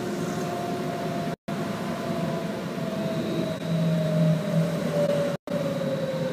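BKM 321 trolleybus under way, heard from inside: steady running rumble with the electric traction drive's whine gliding slowly down in pitch as it slows, and a faint high whine joining about halfway. The sound drops out completely for an instant twice.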